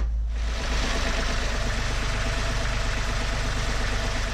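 Boat's diesel engine starting up and running with a steady, even beat. Air is being bled from its fuel system because its revs had been dying.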